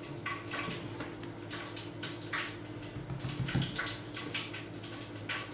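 Vegetable frying oil in a pan beginning to heat, giving faint, irregular crackling and ticking over a steady low hum.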